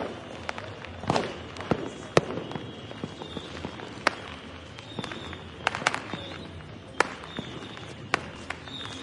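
Firecrackers and fireworks going off in scattered, irregular bangs, some close and sharp, others distant, with the loudest about a second and two seconds in and again at seven seconds.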